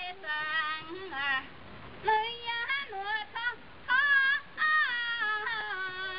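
A woman singing a traditional Chinese song solo in a high voice: short phrases with sliding, wavering pitch, separated by brief pauses.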